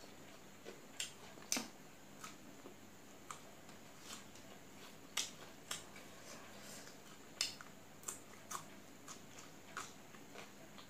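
Eating sounds: short, sharp clicks and crunches at irregular intervals, about one a second, from chewing a crunchy salad of raw shredded greens with rice and from fingers mixing the food on a steel plate.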